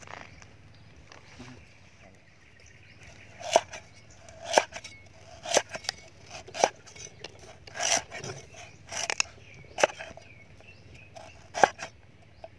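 Cleaver chopping galangal on a round wooden chopping board: sharp chops about once a second, starting about three and a half seconds in.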